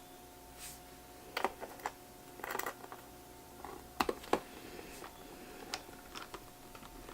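Scattered light clicks and taps of a small screwdriver and tiny screws as a MacBook Pro 2012's bottom case is screwed back on, over a faint steady hum.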